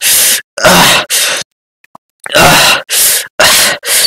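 A man's voice groaning and gasping in about seven short, harsh bursts, with a brief silence in the middle, as if straining over a hard task.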